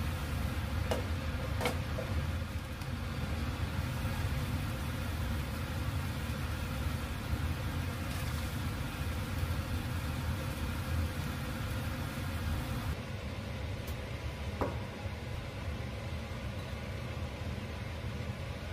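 Steady low kitchen hum, with a few light clicks and taps of utensils on cookware.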